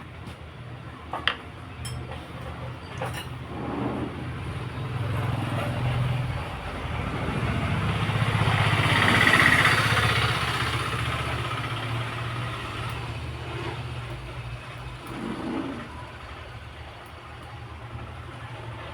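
A motor vehicle going past: its noise swells to a peak about halfway through and then fades, over a steady low hum.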